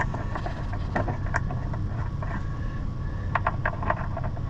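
Scattered light clicks and clinks of hand work on truck door-latch parts, a quick cluster of them about three and a half seconds in, over a steady low rumble.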